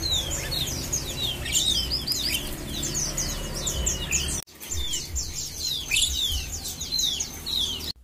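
A cage full of Malaysian pied fantails calling together: many short, falling chirps overlapping. The sound cuts out briefly a little past halfway through.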